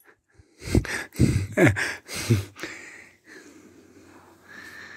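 Small dog grunting and snorting while playing with an ice cube: several short, quick sounds that fall in pitch in the first two and a half seconds, then quieter snuffling and rustling.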